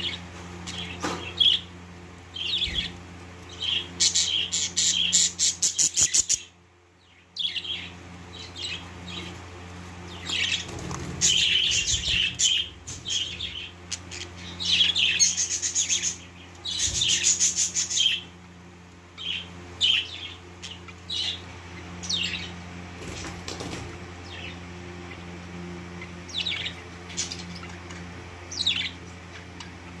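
Budgerigar chicks in the nest chirping and begging: short, high chirps scattered throughout, with a fast run of repeated calls about four seconds in and busier bursts of chirping in the middle.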